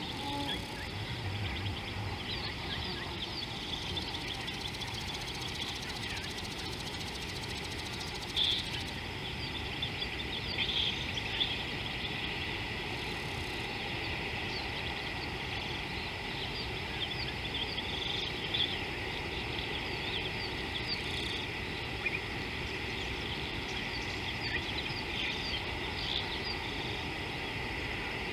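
Bush ambience: many small birds chirping and insects chirring over a steady low background noise, with a few slightly louder chirps scattered through.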